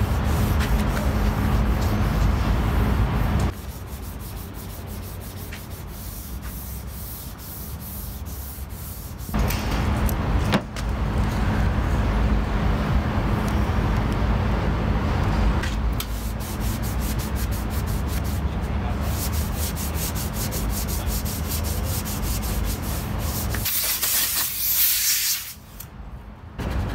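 Sandpaper on a hand sanding block rasping back and forth over the primed steel body of a 1956 Pontiac, block-sanding the primer straight before paint. Near the end a short hiss of compressed air from an air hose.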